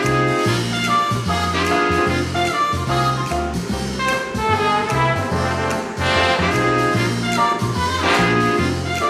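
Jazzy background music led by brass instruments, with held notes over a moving bass line.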